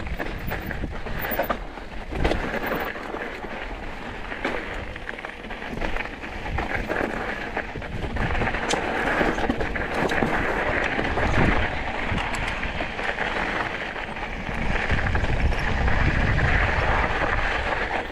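Mountain bike rolling over rocky dirt singletrack: tyres crunching on gravel and rock, with frequent knocks and rattles from the bike over bumps, and wind rumbling on the microphone.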